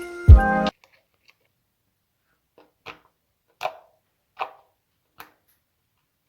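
Background music with a beat stops abruptly under a second in. Then come four short, soft squelching clicks, about one every three-quarters of a second, from clear slime being pressed and handled.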